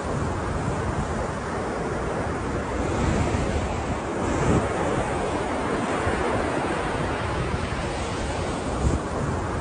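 Ocean surf: waves breaking and washing in as a continuous rush that swells a little a few seconds in. Wind buffets the microphone, with a brief low thump near the end.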